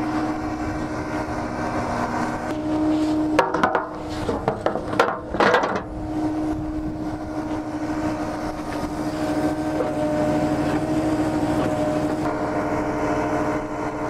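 Volumetric concrete mixer truck's engine idling with a steady hum, and a cluster of metal clanks and knocks about four to six seconds in as the steel extension chute is hooked onto the discharge auger.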